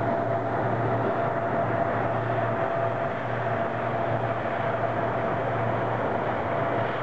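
LC-130 Hercules's four Allison T56 turboprop engines running steadily: a constant whine over a low drone that wavers in strength, with a wash of propeller and exhaust noise.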